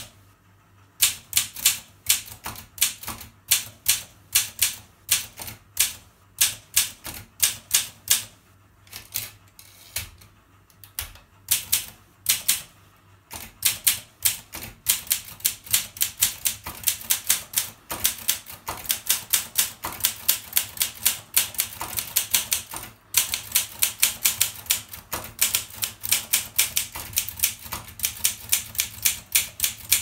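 Olympia SM5 manual portable typewriter being typed on: a long run of sharp key and typebar strikes with a few short pauses. The strokes come faster and closer together in the second half.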